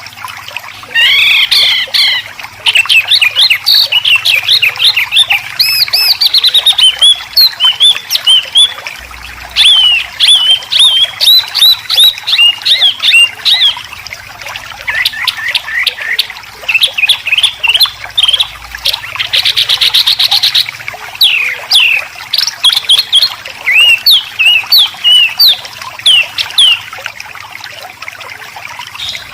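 Songbird singing a fast, harsh 'besetan' song: an almost unbroken string of sharp chirps and quick sweeping whistles, several a second, with a buzzy rattle about two-thirds of the way through.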